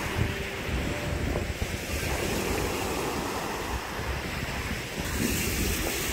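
Small Lake Superior waves breaking and washing up a pebble shore in a steady surf, with wind buffeting the microphone.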